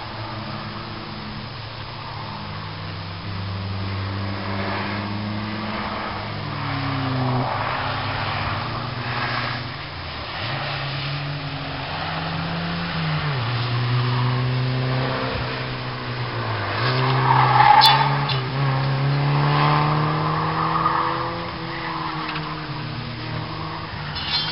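Old rear-engined Škoda Estelle-type sedan's four-cylinder engine driven hard around a race track, its pitch repeatedly rising under acceleration and dropping for gear changes and corners. About two-thirds of the way in, the engine is at its loudest and the tyres squeal through a corner, with one sharp click.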